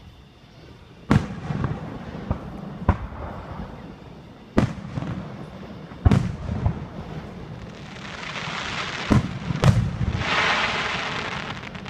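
Aerial fireworks bursting: about six sharp bangs, one every second or two, each followed by a low rumbling echo, with a dense crackle of crackling stars in the last few seconds.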